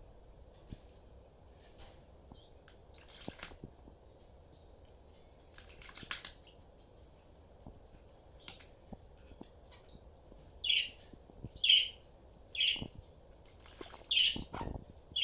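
Quaker parrot chirping: a run of short, loud, sharp calls about one a second in the second half, after a few faint brief noises earlier on.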